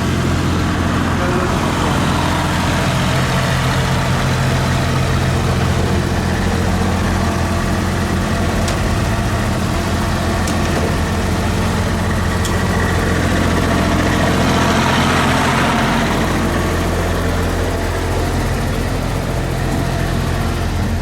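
A vehicle engine idling steadily close by, rising a little in level about two-thirds of the way through.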